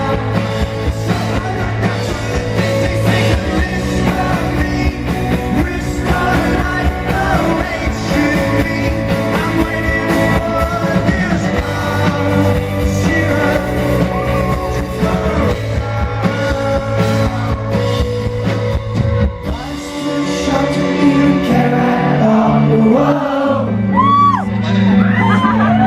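Rock band playing live, with a lead vocal over guitars, bass and drums. About twenty seconds in, the heavy low end drops away and the singing stands out more.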